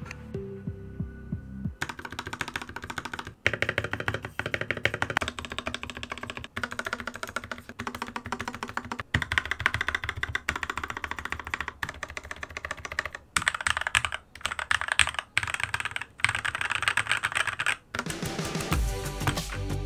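Rapid typing on a mechanical keyboard fitted with spray-lubed Gateron optical switches, a dense run of key clacks with a few brief pauses, over background music that is louder near the start and the end.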